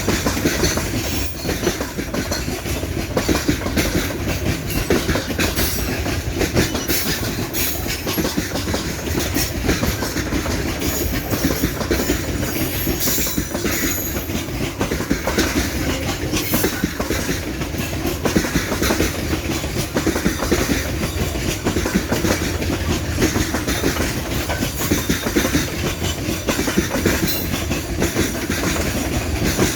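Freight train wagons of a coal train rolling past steadily, wheels clicking over rail joints in a continuous clickety-clack, with now and then a faint high wheel squeal.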